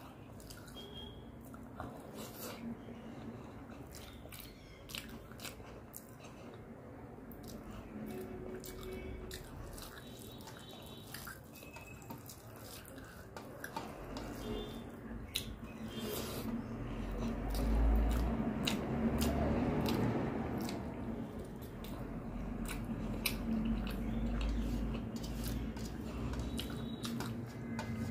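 Fingers mixing rice and egg curry on a steel plate, with soft wet squishing and scattered clicks, together with close-up chewing and mouth sounds. The sounds grow louder and denser in the second half.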